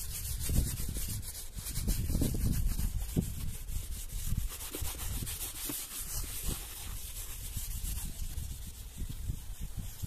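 Baby oil being rubbed into a leather cavalry saddle by hand with a wad of cotton or paper, a steady run of scratchy rubbing strokes. The oil is being worked in to feed the dry leather and close its cracks.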